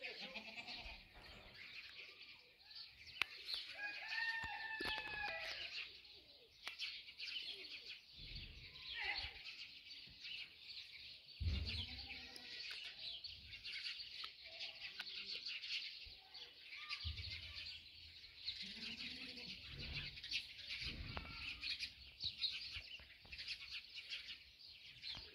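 Village birds chirping steadily, with a rooster crowing once about four seconds in and a few short low calls later on.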